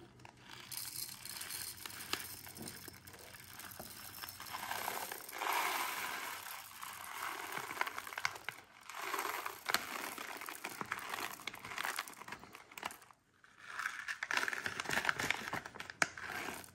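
A thin plastic packet crinkling as whole black peppercorns are poured and shaken out of it into the open hopper of a solid aluminum Mannkitchen Pepper Cannon pepper mill, the peppercorns rattling in as many small clicks. It comes in spells, with a short lull about thirteen seconds in.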